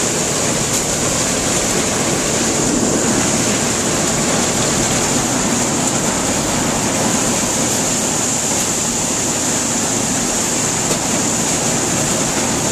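Corn sheller running with the tractor that powers it, a steady, dense mechanical noise with shelled corn moving through the machine.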